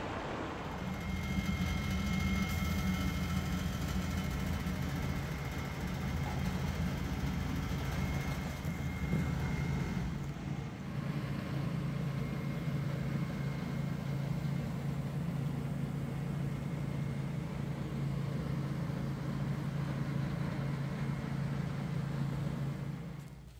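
A steady low mechanical hum with a faint higher whine over it, like a motor or fan running. It drops away abruptly near the end.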